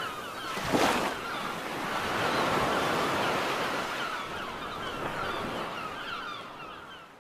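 Sea surf washing in steadily, with a sudden loud rush about a second in and a swell after it, fading out at the end.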